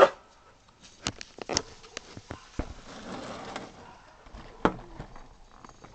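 Handling of a cardboard toy box: a few scattered taps and knocks, with a short soft rustle about halfway through.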